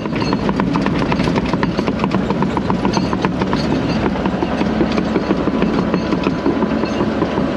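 A heavy machine's diesel engine running steadily as it drives off, with a quick rhythmic clatter over it.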